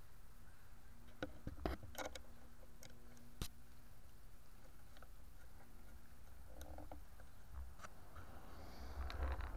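A few faint, sharp clicks and taps over a low steady rumble, with rustling noise picking up near the end.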